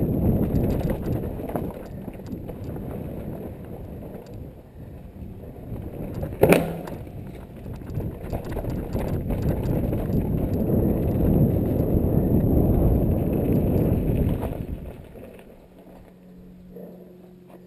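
Mountain bike ridden fast down a dirt trail: tyre noise and the clatter of the bike over roots and bumps, with one sharp knock about six and a half seconds in. Near the end the noise drops off as the bike slows to a stop.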